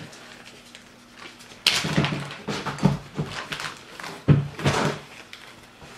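Plastic zip-top bag of taco seasoning being opened and handled, crinkling in a run of short, irregular bursts that start suddenly about a second and a half in.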